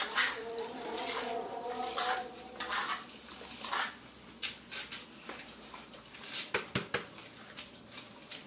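A bucket of cement slurry being handled and emptied onto a concrete floor: the metal bucket clinks and knocks, with a few sharp knocks about two-thirds of the way in.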